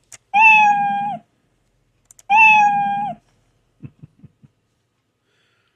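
A cat meow sound effect played twice, two identical steady meows of under a second each with a slight drop at the end, each just after a small click. A few faint clicks follow near the end.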